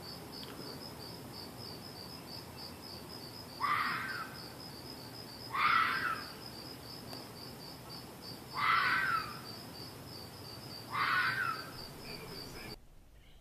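Crickets chirping in a steady, even high pulse, which cuts off near the end. Over them come four louder calls of about half a second each, a couple of seconds apart.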